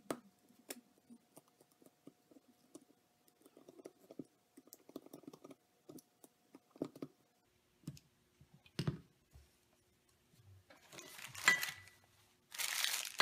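Small clicks and taps of a screwdriver turning little screws and handling a carbon-fibre arm. Near the end, two louder rustling stretches of a cloth rubbing over the part as excess thread-locker is wiped off.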